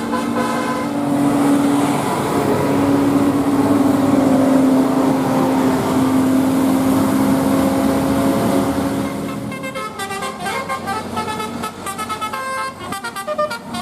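A tour bus goes past with a long, steady low horn note sounding over its running noise. About ten seconds in, a Basuri telolet multi-tone horn starts playing a quick, stepping melody of short notes.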